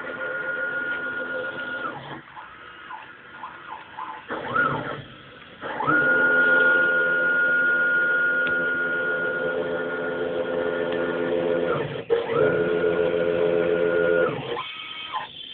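Stepper motors of a home-built CNC router driving the X and Y axes, a steady whine that glides up in pitch as each move speeds up and down again as it stops. There are several moves: one ending about two seconds in, a short one around four and a half seconds, a long one from about six to twelve seconds, and another just after.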